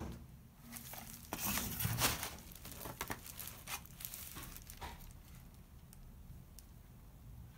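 Crinkling and rustling of plastic packaging handled by gloved hands, with a cluster of sharp crackles about a second or two in that thin out after about five seconds.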